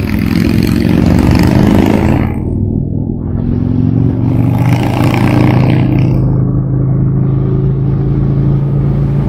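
Harley-Davidson touring motorcycle's V-twin engine running on the road, its pitch rising and falling a little as the throttle is rolled on and off through the curves. Wind rush over the microphone drops away briefly twice.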